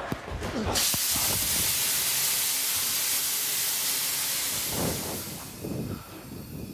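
A few knocks as an actor falls and scrambles on the floor, then a loud, steady hiss of rushing pressurised gas or air from a film set's special-effects rig, starting about a second in and fading after about four seconds.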